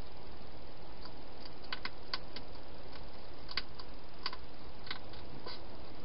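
Wild hedgehog eating from a bowl inside a plastic feeding box: about a dozen small, sharp, irregular clicks over a steady hiss.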